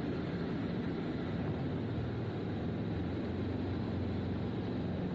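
Steady in-cockpit noise of an SD-1 Minisport light aircraft in flight: a low engine drone and airflow, with no change in level.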